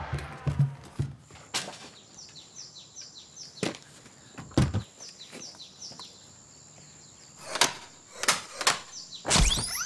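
A string of separate knocks and clatter, with a steady high whine carrying a run of short falling chirps in the first half, and a rising whoosh near the end.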